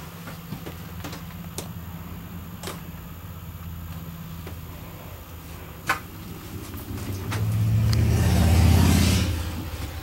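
A steady low hum with a few light clicks and knocks, then a motor vehicle's engine swelling up and fading away as it passes, loudest about eight and a half seconds in.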